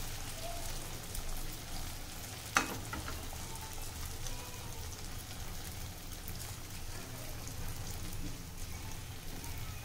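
Dudhauri dumplings of rice and milk dough deep-frying in oil in a metal kadhai over a low flame, a steady sizzle. One sharp tap about two and a half seconds in.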